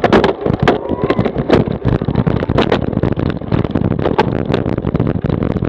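Cyclocross bike and its mounted camera rattling and knocking as they jolt over rough grass: a dense, irregular clatter over a steady low wind rumble on the microphone.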